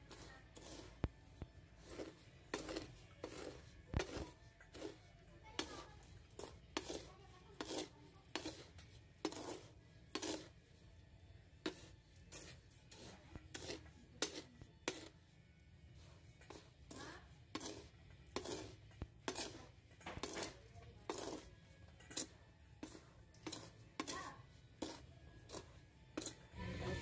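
A spatula stirring and scraping dry rice grains in a pan, in short strokes about once a second, as the rice is dry-roasted for rice coffee.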